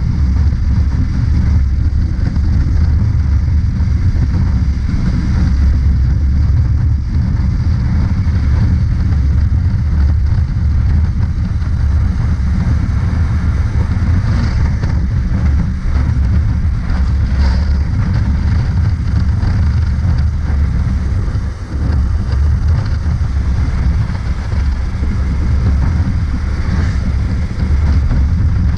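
Honda CB500X's parallel-twin engine running at a steady cruise, under heavy wind rush on the camera microphone. An oncoming lorry passes about halfway through.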